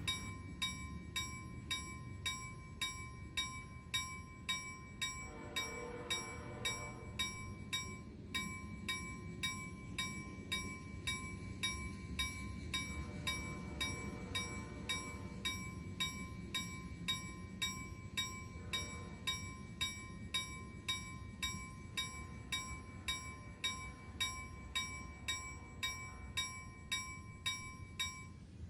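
Even, sharp clicking about twice a second over a low rumble, with a faint steady high tone underneath. A pitched sound swells up briefly three times.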